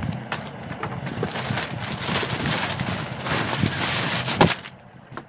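Thin clear plastic wrapping bag crinkling and rustling as it is pulled off a gaming chair backrest, louder in the second half. A single sharp knock near the end, after which the rustling stops.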